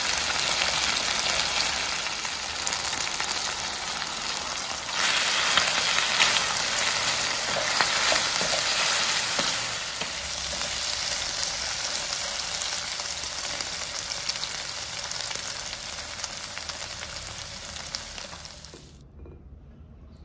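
Chicken thigh pieces sizzling in a non-stick frying pan with honey, garlic and cilantro, stirred with a wooden spatula. The sizzle rises about five seconds in, eases after about ten seconds and dies away near the end.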